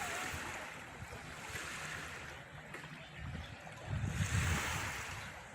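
Sea waves washing onto the shore, swelling near the start and again about four seconds in, with wind buffeting the microphone.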